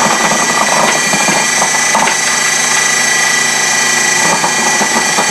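KitchenAid 13-cup food processor running on high with its slicing disc set thick, with a steady motor whine and irregular clatter as carrots are fed down the feed tube and cut into rounds.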